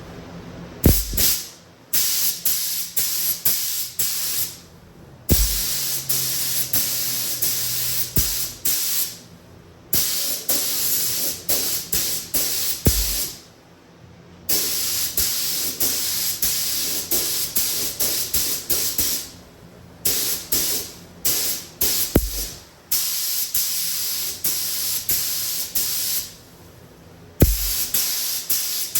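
Air-powered Spectrum HVLP paint gun spraying primer in passes of a few seconds each. The hiss cuts off sharply between passes as the trigger is released, about every three to five seconds.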